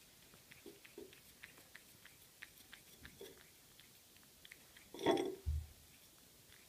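A cat licking an empty ribbed glass dish: a run of faint, quick wet tongue clicks, with one louder scrape and thump about five seconds in.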